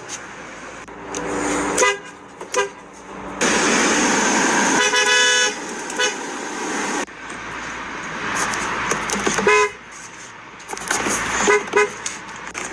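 Car horns honking in a series of short blasts, some in quick pairs, with one longer honk about five seconds in. Stretches of loud rushing noise fill the gaps between them.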